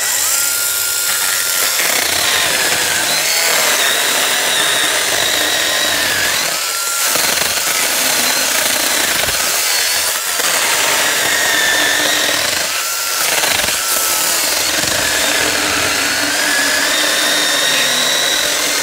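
Worx 20V 5-inch battery-powered mini chainsaw running continuously while its chain cuts through a wooden log. The motor's whine sags under load and rises briefly a few times as the cutting pressure eases.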